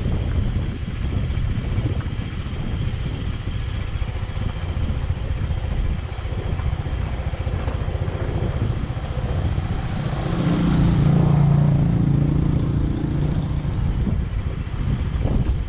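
Motorcycle riding down a rough dirt and gravel road: a steady low rumble of engine and road. About ten seconds in, an engine note swells and grows louder for two or three seconds.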